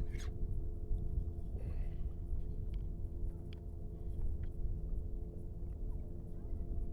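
Steady low rumble of wind and water on an open kayak, with a faint steady drone underneath and a few light clicks.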